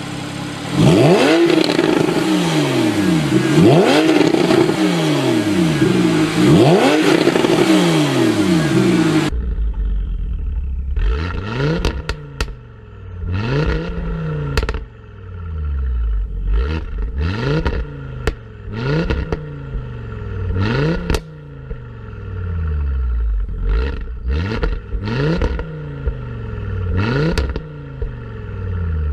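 Sports-car engines revved hard through aftermarket exhausts. In the first clip the revs climb and fall about four times. After a cut about nine seconds in, a second car blips its throttle over and over, with sharp crackles and pops each time the revs drop.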